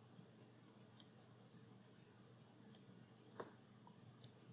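Near silence with four faint, short clicks of a computer mouse spread over about three seconds.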